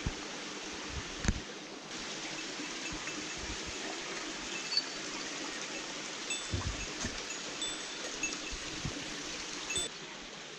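Shallow water running steadily over a cobbled, stone-lined channel, with a few low thumps of wind or handling on the microphone and a few faint, short, high pips.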